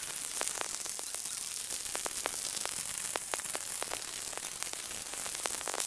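Stick (shielded metal arc) welding on steel: the arc gives a steady crackling hiss with frequent, irregular sharp pops.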